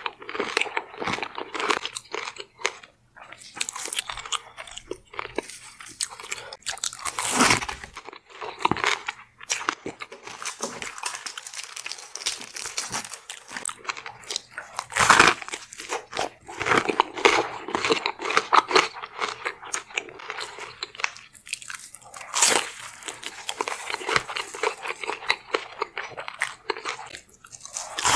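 Close-miked biting and chewing of a Hot Cheetos-crusted king crab leg: crisp crunches of the coating mixed with wet chewing, coming irregularly, with a few louder crunches.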